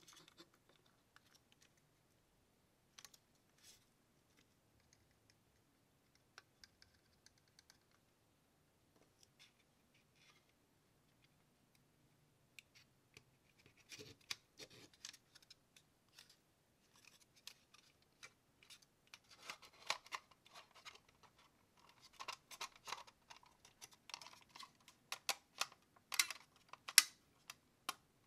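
Small plastic model-kit parts handled and fitted together: light clicks, taps and scratches, sparse at first and busy in the second half, with one sharper click near the end.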